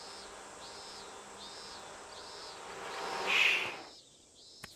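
Cicadas calling in a steady repeating pattern of high, rising-and-falling notes, a bit more than one a second, over a background hiss. A loud rushing sound swells about three seconds in and cuts off abruptly. A single sharp click follows near the end.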